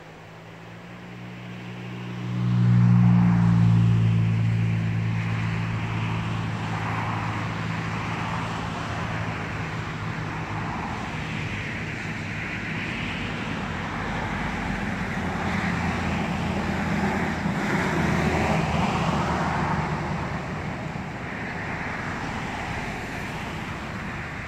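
Motor vehicle engine running close by with a steady low hum that grows sharply louder about two and a half seconds in and then slowly fades, over continuous road traffic noise.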